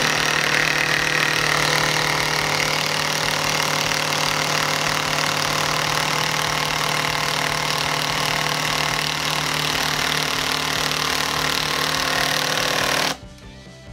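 Ridgid cordless impact driver hammering a long 5/16-inch screw down through a 2x4 into a pressure-treated 4x4. It runs without stopping for about thirteen seconds, slowing just a hair near the end as the screw seats, then stops suddenly.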